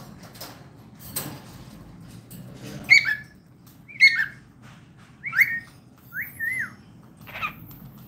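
Cockatiel chirping and whistling: a series of short whistled calls about a second apart, each sliding down in pitch, one with a wavering rise and fall, and a harsher call near the end.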